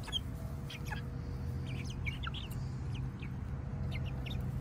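Young chickens foraging in grass, giving scattered short, high cheeps, over a steady low hum.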